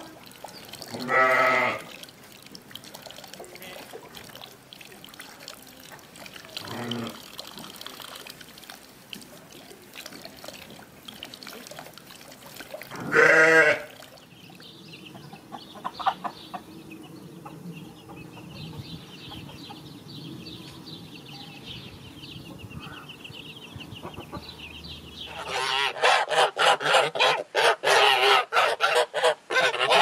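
A Peacock goat bleating: two loud bleats about a second in and at about 13 s, with a fainter one between. Then Sulmtaler chicks peeping softly. Near the end a flock of Cholmogory geese breaks into loud, continuous honking.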